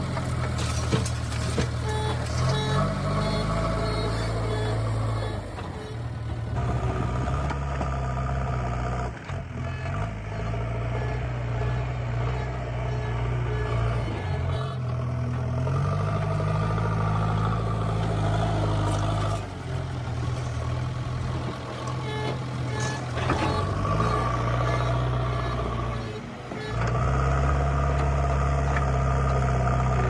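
JCB 3DX backhoe loader's diesel engine running and revving as it works its front loader bucket, the engine note rising and falling between shots. Loose red soil pours from the bucket at the start, and a pulsed warning beep sounds now and then.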